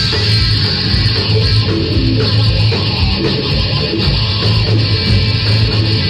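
Live rock band playing loudly: amplified electric guitar over a drum kit, dense and continuous.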